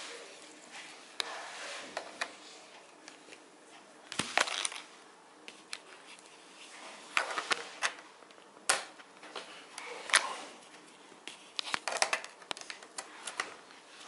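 Irregular small clicks, taps and scrapes of close handling: a screwdriver tip held against the pins of a receiver board's memory chip to short them, and a USB cable plug being pushed into the board. The clicks come in loose clusters, the sharpest around a third of the way in, just past halfway and near the end.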